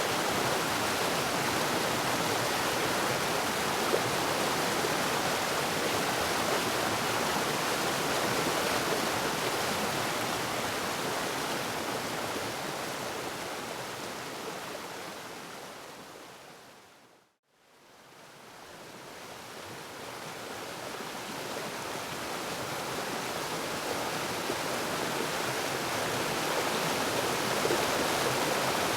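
Waterfall rushing with a steady, even roar of falling water. About two-thirds of the way through it fades smoothly out to a moment of silence, then fades back up.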